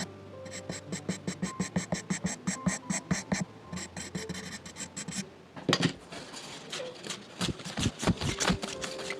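Charcoal pencil scratching on drawing paper: quick short hatching strokes, about five a second, for the first few seconds, then longer, louder strokes in the second half.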